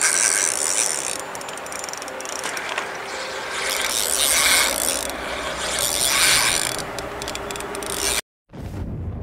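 Spinning reel being cranked, its gears and rotor whirring as line is wound in, in spells of a second or two. The sound cuts off abruptly about eight seconds in.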